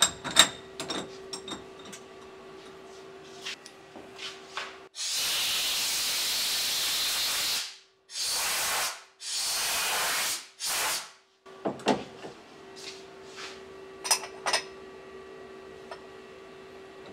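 A compressed-air blow gun with a brass nozzle blows chips out of a mill vise. There is one long blast of nearly three seconds, then three shorter bursts. Sharp metallic clicks and knocks of the vise being handled come before and after.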